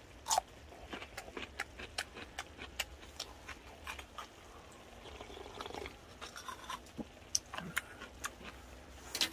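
Close-up chewing of a hot, broth-soaked fish cake: many short, wet mouth clicks and smacks.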